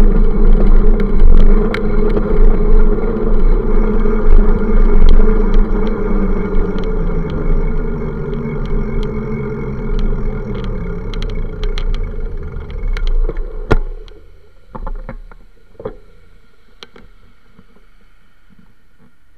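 Wind buffeting and rolling rattle on a camera riding on a moving bicycle. It fades as the bike slows and drops away about fourteen seconds in as the bike stops. A few light knocks follow over quieter street sound.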